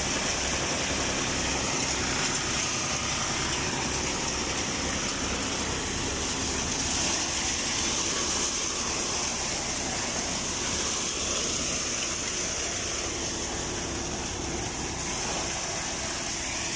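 A tractor-powered threshing machine running steadily under load while threshing sesame, driven from a Fiat 480 diesel tractor through its PTO shaft. There is a constant mechanical whirr and hiss over an even low throb.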